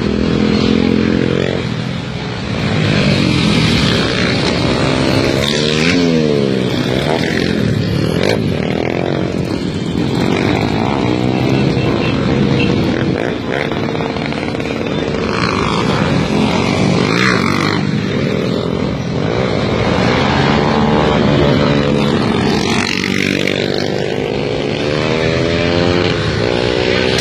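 Motorcycle engine revving up and down over and over, its pitch rising and falling again and again.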